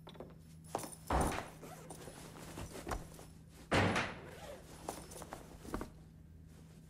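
Toilet stall doors banging shut: two loud bangs, about a second in and again near four seconds, with smaller clicks and knocks between, over a low steady hum.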